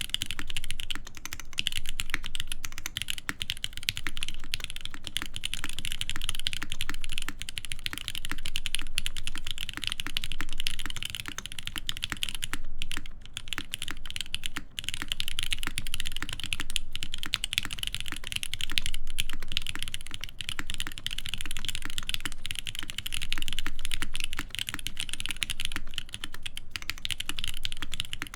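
Continuous fast typing on an ORI CLS-2//65 mechanical keyboard with a full aluminium plate, GMK keycaps and Krytox-lubed hybrid switches (Cherry top housing, Giant v3 stem, Gateron Ink bottom): a dense stream of key clacks, with a couple of short pauses about halfway through.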